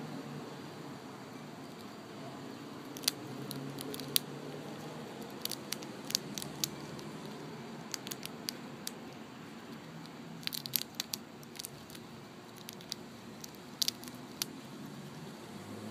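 Eastern chipmunk gnawing open a peanut shell: sharp, irregular cracks and clicks, from a few seconds in onward.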